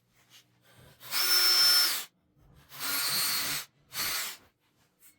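Power drill-driver run in three short bursts, a longer one about a second in and two shorter ones after, backing out the screws of a wall-mounted switch.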